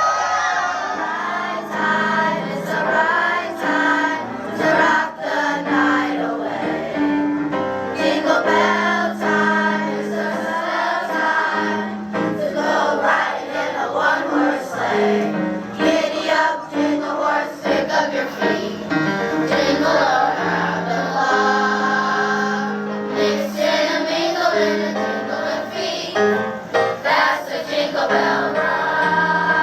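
Children's chorus singing with a musical accompaniment.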